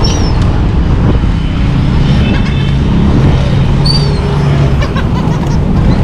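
Two short, high gull calls, one right at the start and one about four seconds in, over a loud low rumble. A low engine hum rises out of the rumble from about two to five seconds.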